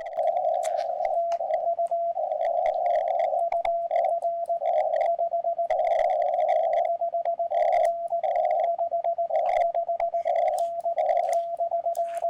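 Morse code on a QRP shortwave transceiver: a single tone of about 700 Hz keyed in short and long elements over narrow-band static, as a CW contact is sent and received.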